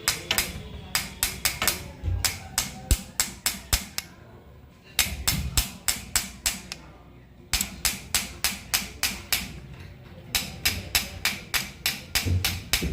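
Rapid hammering: sharp, even blows about three or four a second, in runs broken by short pauses.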